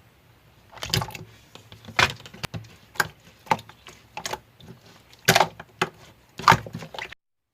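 A run of irregular sharp clicks and knocks, like objects being handled or tapped, that stops abruptly near the end.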